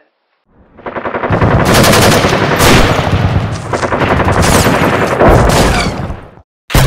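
Sound effect of rapid automatic gunfire, running for about six seconds and cutting off, then a short second burst near the end.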